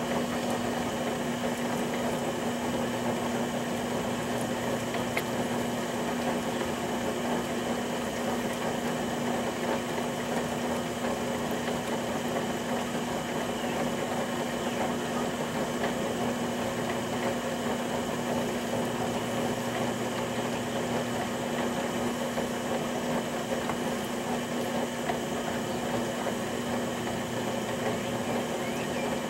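Electric potter's wheel motor running at constant speed, a steady hum with one clear steady tone.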